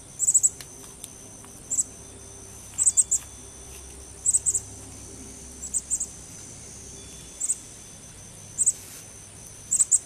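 Insect chirping outdoors: short, high-pitched chirps in groups of two or three pulses, repeating about every second and a half, over a steady low hum.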